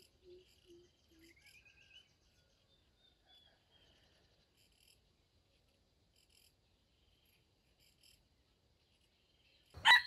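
Faint insect chirping with a few soft calls: four short low notes in the first second and a rising chirp about a second and a half in. Near the end a red junglefowl rooster starts a loud crow.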